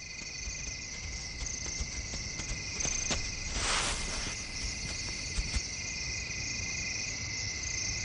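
Night insects chirping steadily in high-pitched trills, with a brief rush of noise about three and a half seconds in.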